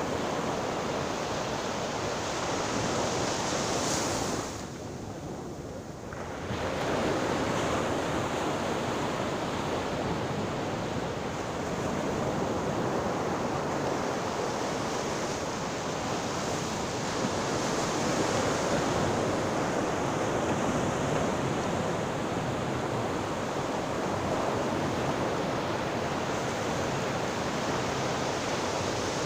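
Sea surf: a continuous rush of waves breaking, easing briefly into a quieter lull about five seconds in before swelling again.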